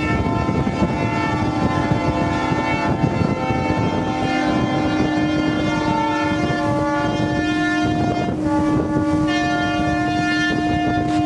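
Ships' horns of a fleet of beam trawlers sounding together in protest, many steady horn notes at different pitches overlapping in a continuous chord. About eight seconds in some horns drop out and others join. Underneath runs a rushing noise of engines and wash.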